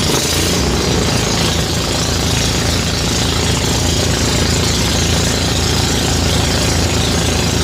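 Engine-powered rice threshing machine running steadily, a constant engine drone under a wide hiss.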